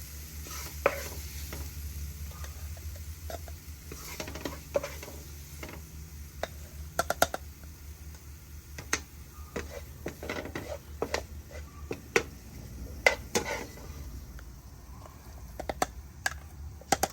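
A metal spoon scraping and clinking against a cooking pot in irregular strokes while the hot masala still sizzles faintly, over a low steady hum.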